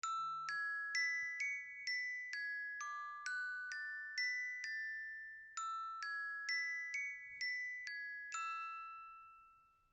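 Countdown timer's alarm going off: a bell-like chime melody of single struck notes at about two a second, with a short pause about halfway through, the last note ringing out and fading.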